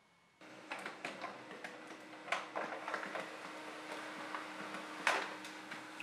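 Canon MF113w monochrome laser printer printing a test page. Its motor starts running steadily about half a second in, with many small clicks and ticks as the sheet feeds through, two sharper clicks standing out, and the page starts coming out at the end.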